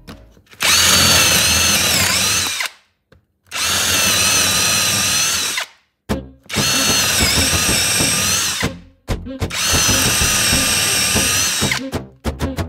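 Power drill boring holes in a softwood block with a brad-point wood bit, in four runs of about two seconds each with short pauses between. The motor's whine dips in pitch as the bit bites into the wood, then recovers.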